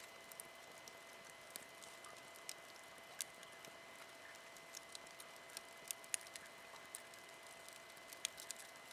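Wood campfire crackling faintly: irregular small pops and snaps over a low hiss, with a few sharper pops scattered through.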